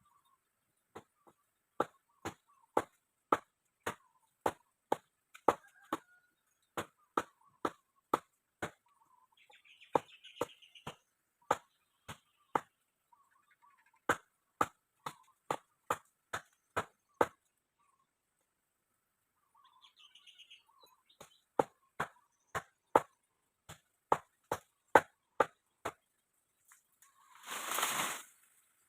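Sharp knocks repeated about twice a second in uneven runs, with silent gaps between them, and a short loud burst of noise near the end.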